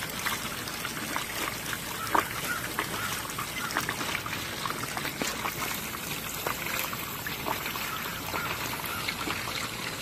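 Rinse water draining out of the wash tub of a Costway EP21684 twin-tub mini washing machine: a steady trickle of water with small irregular drips.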